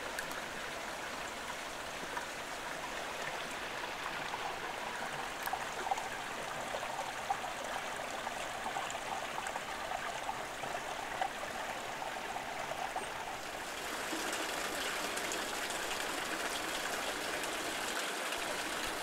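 Small spring-fed stream trickling and splashing over rocks, a steady water noise that grows a little louder and brighter about fourteen seconds in.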